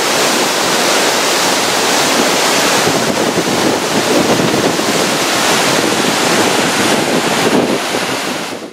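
Rushing whitewater as water released through an opened hydro-canal gate turns the calm canal into rapids, with wind on the microphone. The rush is steady.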